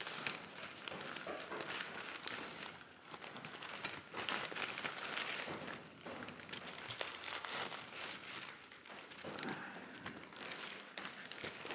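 A fabric fishing-rod bag rustling and crinkling unevenly as it is handled and opened, with a few small clicks among the rustles.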